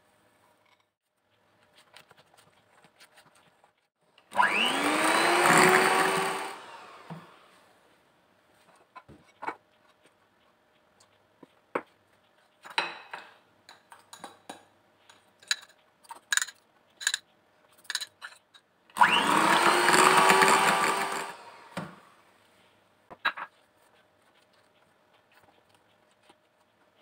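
Electric hand mixer whipping heavy cream in a glass bowl, run twice in short bursts of about two seconds, its whine rising as it spins up each time. Between the bursts come light clicks and taps of a spatula against the glass bowl.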